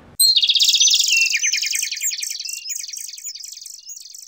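Birdsong used as a station sound logo: a rapid run of high chirps and trills that starts abruptly and fades out near the end.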